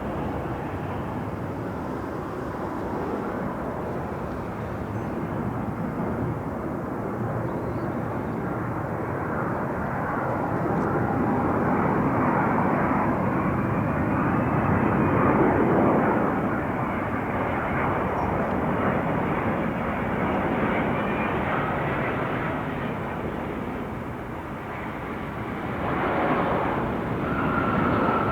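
Jet airliner passing by, a steady rush of engine noise that swells to its loudest about halfway through and then fades away.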